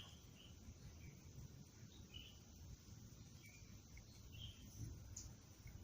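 Near silence: faint outdoor ambience with a few short, high chirps scattered through it.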